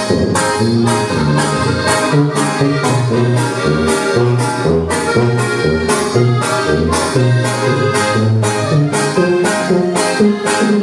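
Live norteño band playing a song: button accordion carrying the melody over a sousaphone bass line, with guitar and electric bass on a steady beat.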